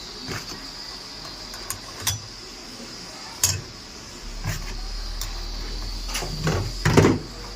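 Sparse knocks and clinks of tools and parts being handled during clutch repair on an auto-rickshaw, with a cluster of louder knocks about six to seven seconds in.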